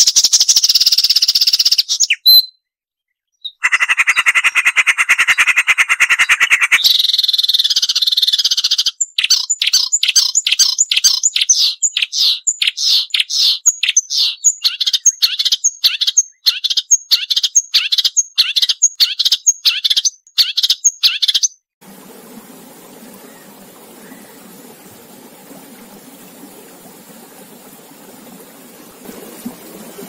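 Marsh warbler singing: fast high trills, a buzzy phrase, then a long run of sharp repeated notes at about three a second. The song stops about 22 seconds in and gives way to the faint sound of running water.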